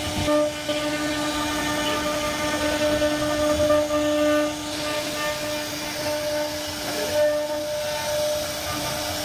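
CNC router spindle running with a steady high whine while its bit cuts into a wooden panel, with the hiss and rasp of the cut underneath.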